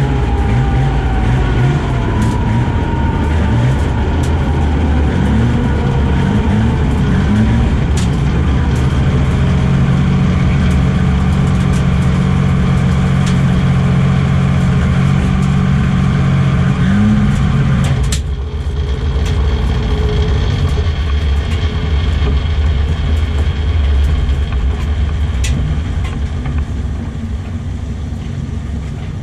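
Turbocharged Toyota 2JZ straight-six in a drag-race Celica, heard from inside the cockpit as the car is driven. The engine note climbs briefly again and again over the first several seconds, then holds steady for about eight seconds, and at about eighteen seconds drops suddenly to a quieter, duller sound.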